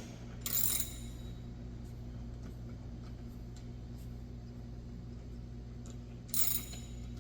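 Ratchet wrench with an extension and socket working a bumper bolt: faint ratcheting clicks, with two short metallic rattles, one about half a second in and one near the end. A steady low hum runs underneath.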